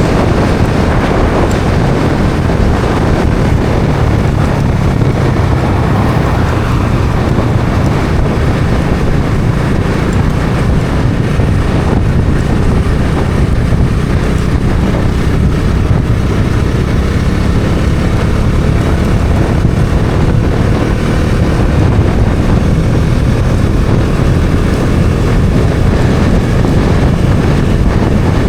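Bajaj Dominar 400's single-cylinder engine running at steady road speed, with heavy wind noise on the microphone.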